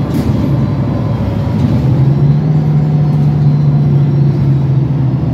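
Mercedes-Benz Citaro city bus under way, heard from inside the passenger cabin: a steady low engine drone over road rumble, its hum settling into a strong constant tone about two seconds in.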